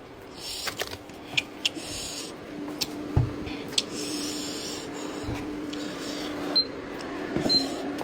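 Handling sounds: a series of sharp clicks and short rustles over a steady low hum.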